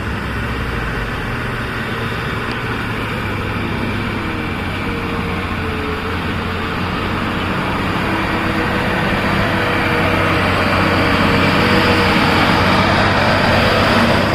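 Truck engine sound effect running steadily with a low hum, slowly growing louder.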